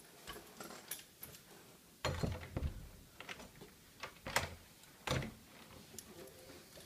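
A man walking with a cane makes a few scattered knocks and clicks, then a wooden door is handled and pulled open. The loudest knocks come about two seconds in and again about five seconds in.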